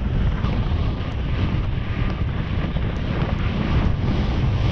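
Wind buffeting the microphone of a rider-mounted GoPro as the horse moves at speed across a cross-country course: a steady, loud low rumble.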